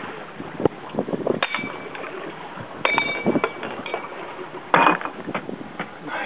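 Scattered knocks and metallic clinks of fishing gear being handled on a boat deck, several with a short ringing tone, and one louder knock near the end.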